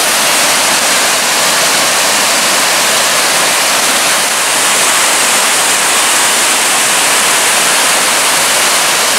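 Loud, steady rush of water from a creek's falls, an even hiss with no breaks.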